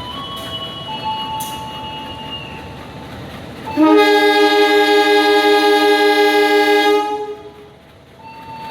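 Train horn: after quieter held tones that step from pitch to pitch like a tune, a loud long blast of a two-note horn chord comes in about four seconds in, holds for about three seconds and then fades away.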